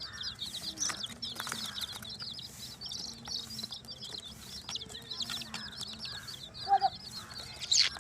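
A brood of baby chicks peeping: many rapid, high-pitched peeps overlapping without a break, with a short, louder, lower call near the end.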